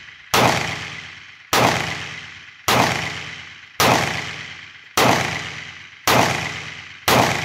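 Heckler & Koch USP Compact .45 ACP pistol firing seven shots at a steady pace, about one a second, with Hornady Critical Duty +P ammunition. These are the single-action follow-up shots of a clean function check, and each report rings out and dies away before the next.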